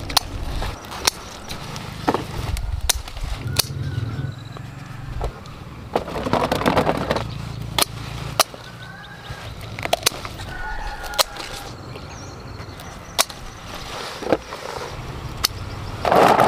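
Scissors snipping green bell peppers off their stems, sharp clicks about every second or two, with leaves rustling between cuts, over a low steady rumble. Near the end, peppers tumble from a basin into a wicker basket.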